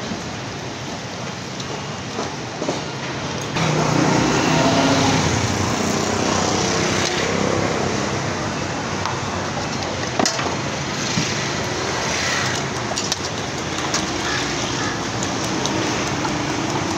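Street traffic noise, louder from about three and a half seconds in, over the sizzle of egg mal pua deep-frying in a wide karahi of hot oil. A sharp metal clink about ten seconds in.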